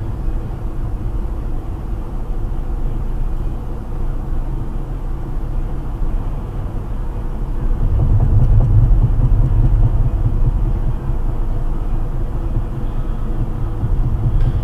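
Road and engine noise of a moving car heard from inside the cabin: a steady low rumble that grows louder about eight seconds in.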